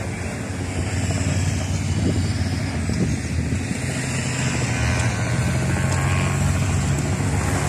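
Engines of a race escort motorcycle and following car passing slowly behind a group of cyclists: a steady low engine hum that grows a little stronger about four seconds in.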